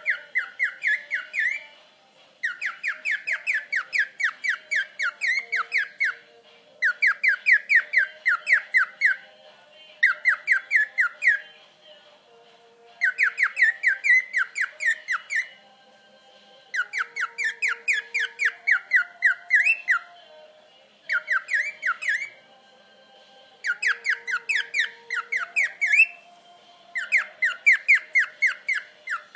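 Cockatiel singing in repeated bouts of rapid chirping notes, about eight to ten notes a second. Each bout lasts two to three seconds, with short pauses between them.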